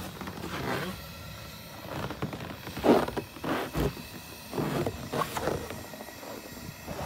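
Pot of water boiling steel leghold traps over a gas burner, giving irregular bursts of bubbling and clatter; the loudest comes about three seconds in.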